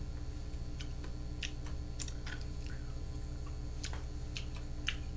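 Quiet room with a steady low hum and a few faint, scattered small clicks.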